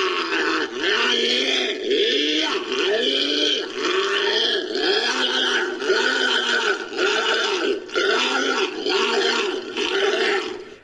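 Designed creature call built from sea lion, seal and walrus recordings: a string of pinniped calls, each rising then falling in pitch, repeating about once a second and running on without a break.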